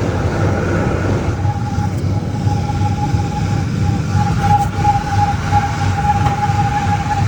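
A 2003 Ford Expedition's V8 idling, with a high, thin chirp repeating rapidly over the engine, almost continuous in the second half. The chirp appears only once the engine is at operating temperature, and the owner suspects a pulley in the serpentine belt drive.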